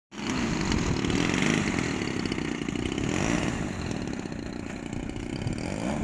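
DLE 20cc single-cylinder two-stroke gasoline engine on an RC model plane running steadily, turning its propeller.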